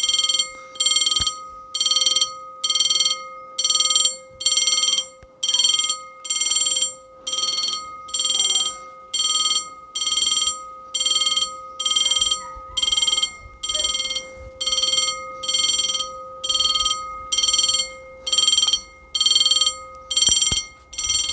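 Old EFACEC mechanical level-crossing bell ringing in evenly spaced strokes, a little over one a second, each a bright clang that dies away before the next. The crossing's warning is active with the barrier down for an approaching train.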